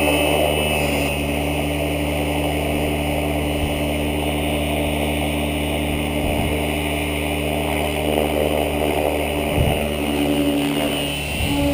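Electric Align T-REX 550 RC helicopter's motor and main rotor running at a steady pitch, a whine with a steady high tone above it, with a few brief gusts of wind on the microphone.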